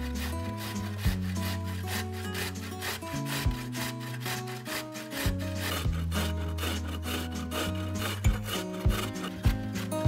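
Carrot being grated on a metal grater, repeated scraping strokes in an even rhythm, over background music.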